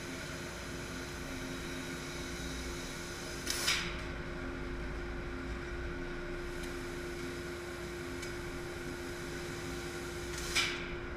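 Laser cutting machine running with a steady hum. Two short hissing blasts come about 3.5 s and 10.5 s in, as the laser fires and cuts through the sheet-steel trunk pan, throwing sparks.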